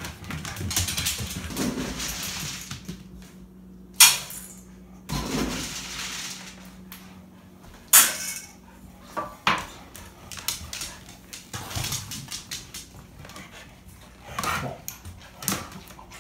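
Dog food hitting metal dog bowls and the bowls clattering as dinner is dished up, with two sharp, loud clanks about four and eight seconds in.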